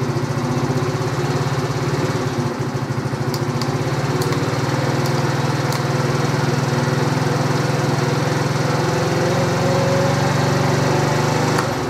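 Four-stroke 139QMB (GY6-type) scooter engine, bored to about 72 cc, idling steadily, then shut off just before the end.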